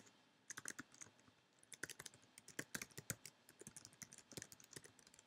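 Faint, irregular keystrokes on a computer keyboard: someone typing a web address into a form field.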